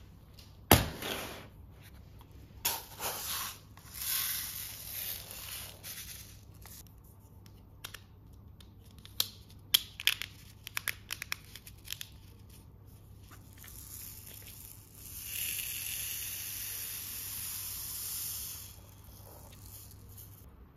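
Silica gel beads being scooped and poured into grey 3D-printed plastic desiccant holders, with a rattling hiss from the beads. A longer steady pour comes near the end. There are clicks and knocks from the plastic parts being handled on the table, the loudest a sharp knock about a second in.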